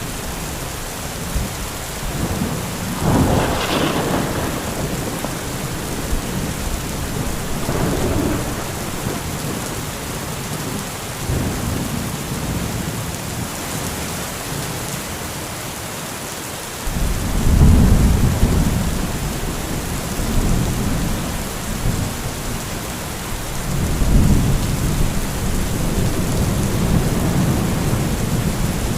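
Heavy rain falling steadily through a thunderstorm. Thunder sounds again and again: a sharp crack about three seconds in and a lesser one near eight seconds, then long low rumbles, the loudest starting a little past halfway and another near the end.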